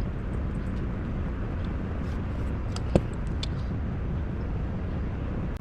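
Steady background noise with a few light clicks and one sharper tap about three seconds in, from small tire and rim parts being handled during mounting.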